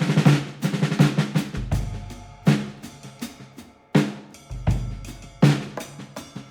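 Background music with a drum-kit beat, snare and bass-drum hits over a low bass line.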